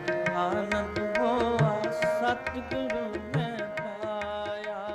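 Sikh kirtan music: a devotional hymn with tabla strokes under a steady held drone tone and a sliding melodic line.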